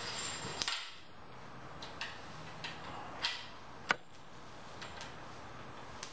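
Handling of a black elastic bungee cord: a soft rustle in the first second, then scattered light clicks and taps at irregular intervals, about seven in all, the sharpest about four seconds in.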